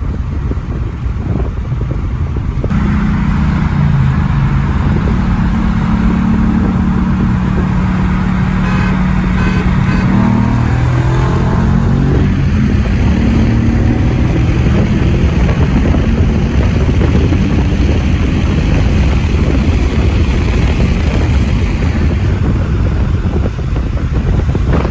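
Car engine running hard during a street race, over heavy wind and road rumble; its note holds steady for several seconds, then climbs.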